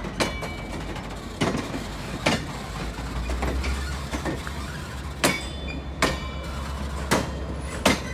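Passenger car wheels clicking over rail joints as the cars roll slowly past, a sharp knock every second or so over a steady low rumble that grows stronger about three seconds in.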